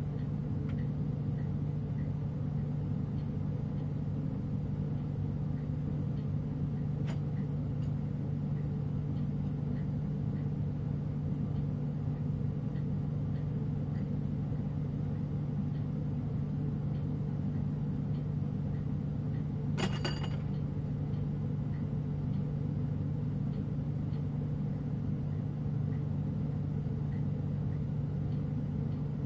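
Lampworking torch flame burning steadily: an unbroken low rumble with a constant hum. One sharp click about two-thirds of the way through.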